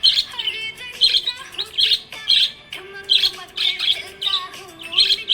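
Budgerigars chirping: short, high chirps in quick bursts, about two a second, with a faint wavering lower tone underneath.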